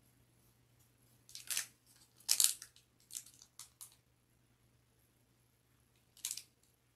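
Crinkling of a sealed Topps Stadium Club card pack's foil wrapper as it is gripped and handled: a few short crackles starting about a second in, the loudest around two and a half seconds, several smaller ones after, and one more near the end.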